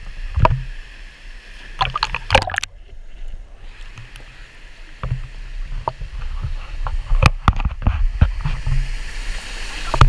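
Water rushing and splashing down a waterfall, close to the camera, with a steady low rumble. Sharp knocks and bumps from the handheld camera come now and then, and the sound is briefly muffled about three seconds in.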